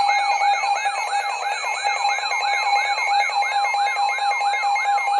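Emergency Alert System alert sound: a steady, piercing high tone layered with a siren-like sweep that rises again and again, a little over three times a second.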